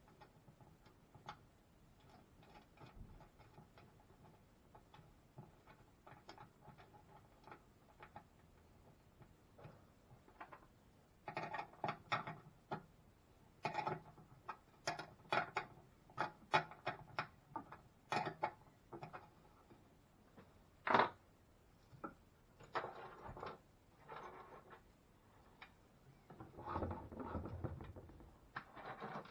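Scattered metallic clicks and clinks of hand tools and small metal fittings being handled while bolting the bandsaw together. The clicks come in quick clusters, with one sharper knock about two-thirds of the way through and a brief rubbing rustle near the end.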